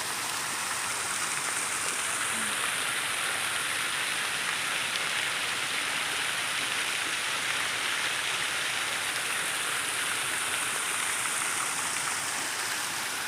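Water fountain running: a continuous, even rush of water falling and splashing.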